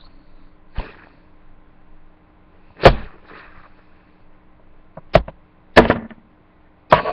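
About five sharp knocks or taps, spaced irregularly, the loudest about three seconds in.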